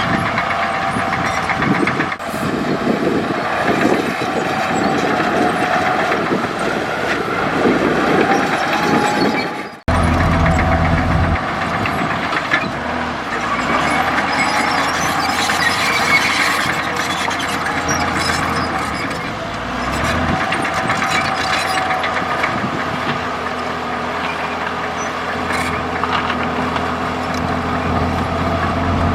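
Komatsu D65E crawler bulldozer's diesel engine running steadily under work, with a low rumble; the sound cuts off abruptly and resumes about ten seconds in.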